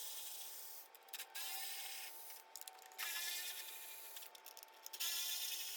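Faint hand-tool work: rubbing and scraping, with a few short runs of quick clicks, over a thin steady hum.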